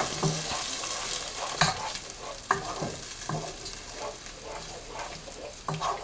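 Wooden spatula stirring a thick ground-pea paste frying in a nonstick pot: a steady sizzle with irregular scrapes of the spatula against the pan about once a second.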